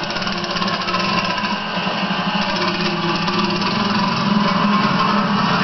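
Baja minibike's small engine running steadily with a fast rattly pulse, growing slowly louder.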